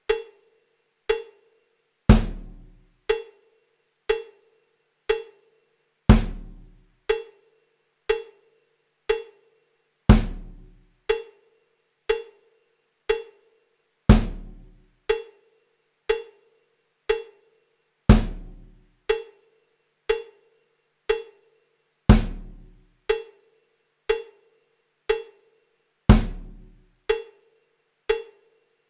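Slow, sparse percussion loop of holding-screen music: one beat a second, with a heavier, deep hit every fourth beat and lighter pitched knocks in between.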